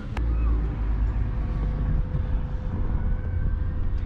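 A car door shuts with a single sharp click just after the start, followed by a steady low rumble with a faint steady hum.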